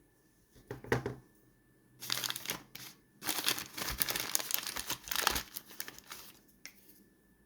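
Crinkling and rustling of something being handled, in several bursts, the longest lasting about two seconds, followed by a single click near the end.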